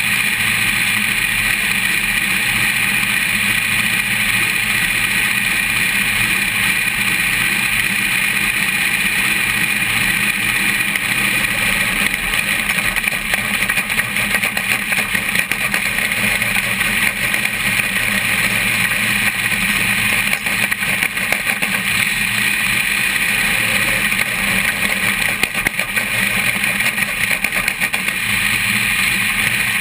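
Race car running at steady speed, heard close up from its front suspension: a continuous mix of engine, tyre and wind roar with no clear changes in pitch.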